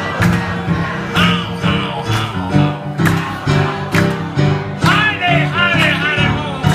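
Live blues piano on an electric stage piano, amplified through PA speakers, with a steady rhythm of left-hand bass notes and chords.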